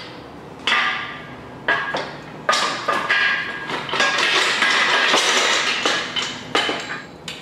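Steel engine stand clanking and scraping as its mounting tube is slid onto the adapter bolted to an engine block: a few sharp metal knocks about a second apart, then a longer stretch of scraping and rattling metal, and more knocks near the end.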